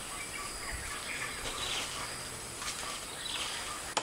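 Outdoor ambience of birds chirping now and then over a steady, high-pitched insect drone.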